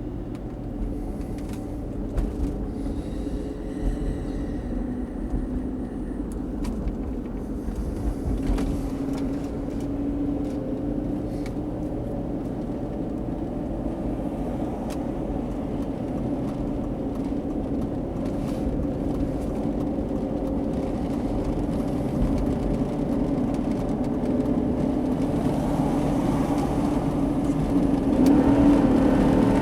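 A truck's naturally aspirated 6-litre engine and road noise, heard from inside the cab while driving. The engine's drone slowly builds and rises in pitch near the end as the truck accelerates.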